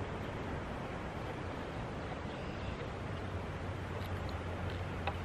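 Steady wind and lake-side noise on the microphone with a low hum underneath, and a few faint splashes near the end as a hooked bass is grabbed by the lip at the boat's side.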